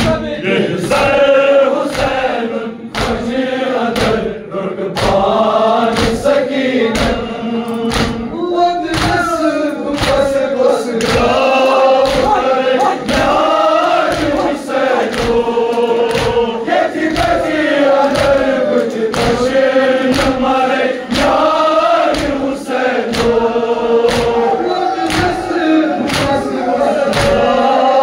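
A Kashmiri noha, a Muharram lament, chanted in unison by a crowd of men. Throughout, a steady beat of open-handed chest slaps (matam) falls about one and a half times a second.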